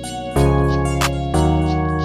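Background music: sustained chords that change about a second apart, with a light tick near the middle.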